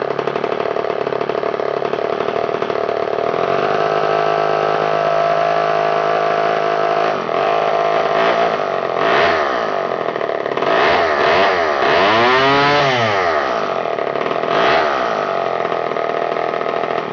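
Two-stroke chainsaw engine idling steadily, then revved up and back down several times from about halfway through, with one big rev near the end before it cuts off.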